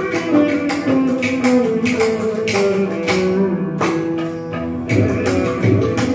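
Carnatic veena playing raga Kapi, its plucked notes sliding between pitches, accompanied by mridangam and ghatam strokes in khanda chapu tala. The drum strokes thin out a little past the middle and come back strongly near the end.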